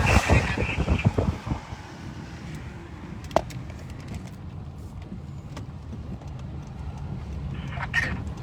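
Steady road and engine hum heard inside a moving car, with loud, uneven low thumps for about the first second and a half and a single sharp click about three and a half seconds in.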